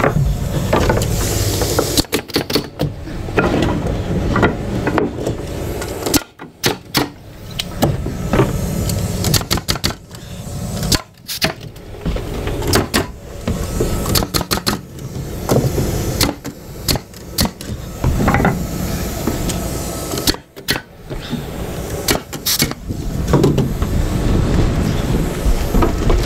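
Pneumatic framing nailer firing nails through wood plates into studs, sharp shots coming in quick runs, with the knock of lumber being handled, over a steady low rumble.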